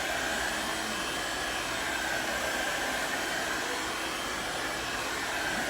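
Handheld hot-air blower running steadily with a rushing hiss and a whine that wavers slightly in pitch, heating wallpaper to soften it over a trapped air bubble.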